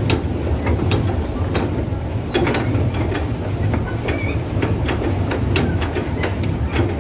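Swan pedal boat's pedal drive clicking and knocking irregularly as it is pedalled, over a steady low rumble.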